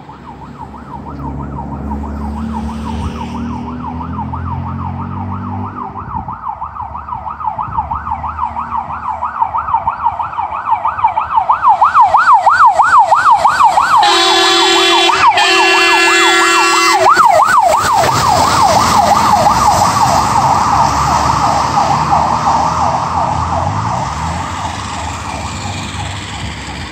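Fire engine on an emergency run with its siren on a fast yelp, about three sweeps a second, growing louder as it approaches and fading as it passes. About halfway through it sounds two long horn blasts, one just after the other.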